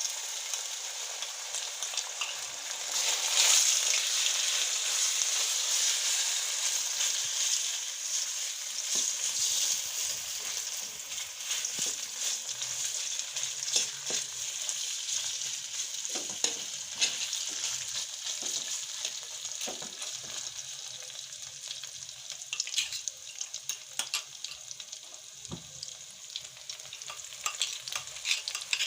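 Chicken pieces sizzling as they fry in hot oil in a kadai, loudest a few seconds in. From about nine seconds in, a spatula scrapes and taps against the pan as the pieces are turned.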